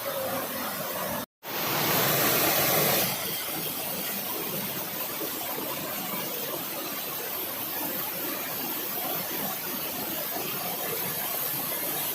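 Steady rush of falling water from a waterfall. It cuts out for an instant about a second in, then comes back louder for about two seconds before settling.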